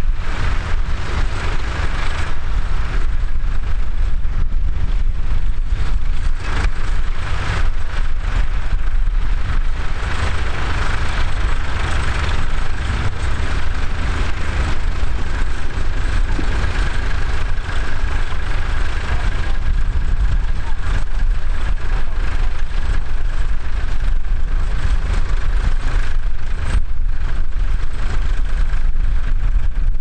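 Ford tractor diesel engines running steadily under load as they pull mounted ploughs, with wind rumbling on the microphone.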